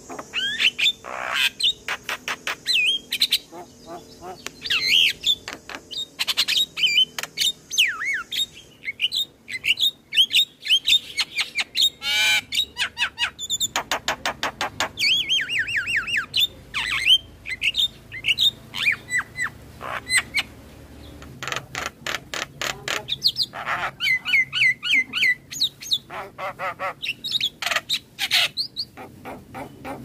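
Javan myna (jalak kebo) singing a fast, varied song of quick whistled chirps, harsh squawks and runs of rapid clicking.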